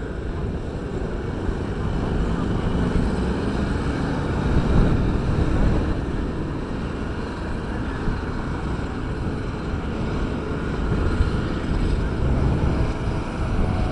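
Low, steady rumble of diesel road-construction machinery, the asphalt rollers at work, mixed with wind buffeting the microphone.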